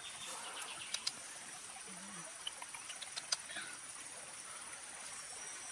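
Crickets chirring steadily in a high, continuous drone. A few sharp clicks and pops sound through it, loudest about three seconds in.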